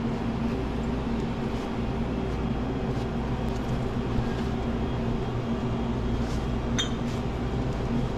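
Steady, even hum of commercial glass-door drink coolers running their refrigeration. A faint glassy clink comes late on.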